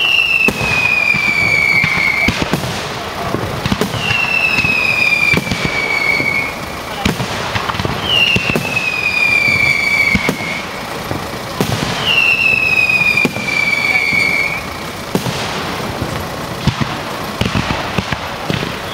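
Fireworks display: shells bang and crackle continuously. Over this, a loud whistle falls in pitch over about two seconds and repeats about every four seconds, five times in all.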